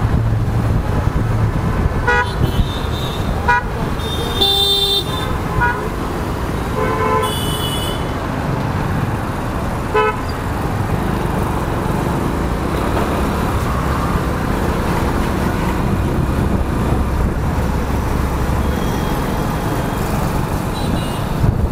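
Traffic noise heard from a moving motorcycle: steady engine, road and wind rush, with a string of short vehicle horn toots in the first half, the longest and loudest about five seconds in.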